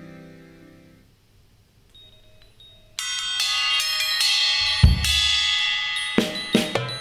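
Live ensemble music: a sustained guitar chord fades away into a brief lull, then about three seconds in a loud ringing cymbal-and-drum passage comes in suddenly, with one deep low hit and then quick repeated drum strikes near the end.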